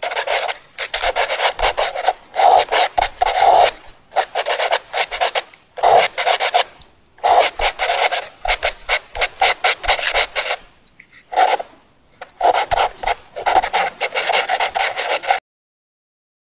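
Pencil scratching on paper in quick writing strokes, coming in runs of one to two seconds with short pauses, and cutting off abruptly about a second before the end.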